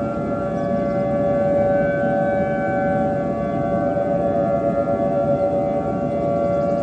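Civil-defence-style siren holding a steady pitch rather than rising and falling, over a loud noisy rumble.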